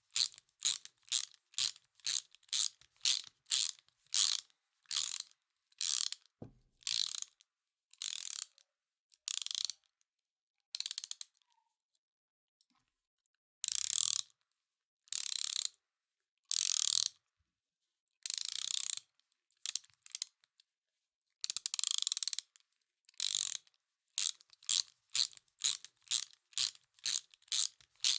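Hand ratchet wrench being worked back and forth, its pawl clicking in a run with each back-swing of the handle. The strokes come quickly and short at first, pause for a couple of seconds, then come as slower, longer runs before turning quick again near the end.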